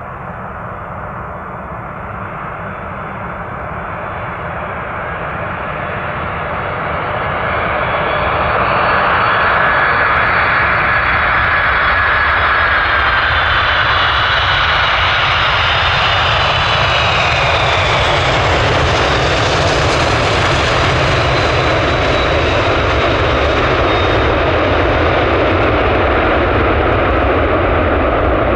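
Boeing 747 jet engines on a landing approach, growing louder over the first several seconds and then staying steady and loud as the jet passes. Whining engine tones slide down in pitch as it goes by.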